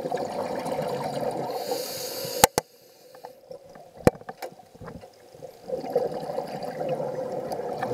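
Scuba diver breathing through a regulator underwater. A long exhalation of gurgling bubbles ends in a hiss about two seconds in. A quieter stretch follows with a few sharp clicks, and another bubbly exhalation starts about six seconds in.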